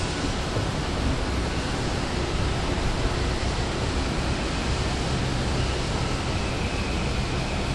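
Steady wash of ambient noise in a vast glass-roofed station atrium, with no distinct events standing out.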